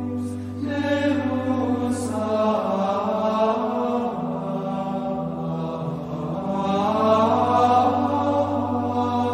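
Slow chanted singing over a held low drone. The drone drops out a couple of seconds in while the voices carry on, and comes back near the end.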